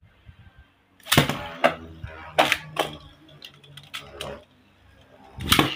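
A Beyblade Burst spinning top launched into a plastic stadium. A sharp clack comes about a second in, then the top clatters against the stadium with a low hum from its spin, and a loud clack comes near the end.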